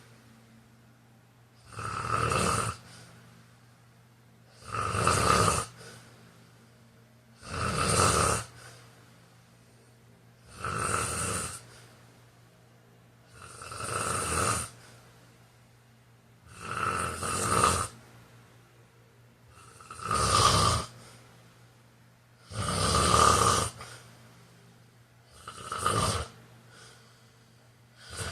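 A sleeping man snoring steadily, about nine snores roughly three seconds apart, each about a second long.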